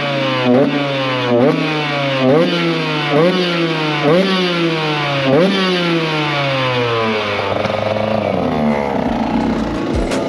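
Two-stroke supermoto engine revved in quick throttle blips about once a second, each rev rising sharply and falling away slowly. The revs fade out after about seven seconds.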